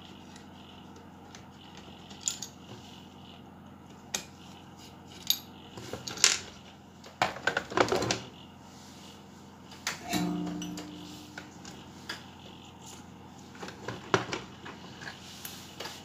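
Scattered clicks, knocks and metallic clinks of a screwdriver undoing screws on a car amplifier's metal chassis and the circuit board being lifted out and handled, with a cluster of clatter in the middle. About ten seconds in, one metal clink rings briefly.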